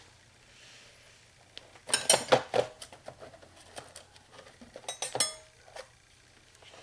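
Metal hand tools from a Snap-on set clinking and clattering against each other as they are handled, in two short bursts of clatter, one about two seconds in and another about five seconds in.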